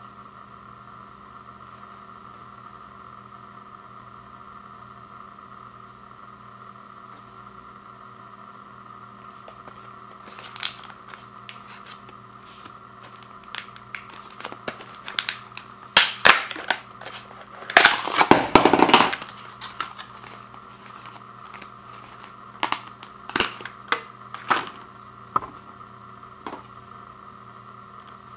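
Plastic blister packaging and cardboard backing crackling and snapping as the pack is worked open by hand. There are scattered clicks, a few loud snaps, and one longer rasp of about a second. The first third holds only a steady faint hum.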